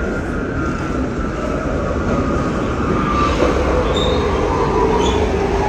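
R68 subway train running on the rails: a loud rumble with a whine that falls slowly in pitch, and short high wheel squeals a few seconds in.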